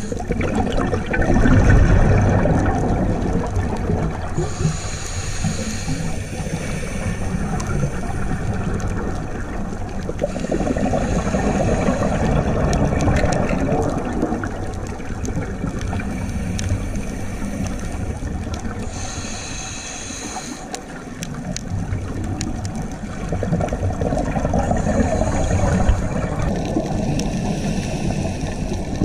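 Underwater sound heard through a dive camera's housing: a continuous muffled rush of water in a current, with a few brief swells of higher hissing, typical of a diver's regulator breathing and exhaled bubbles.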